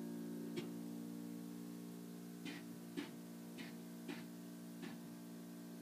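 Quiet background music: a sustained chord held throughout, with about six short plucked notes scattered through it.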